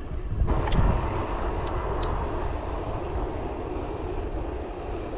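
Steady rushing noise of a bicycle ride: wind on the microphone and tyres on the road, stepping up abruptly about half a second in, with a few faint ticks in the first two seconds.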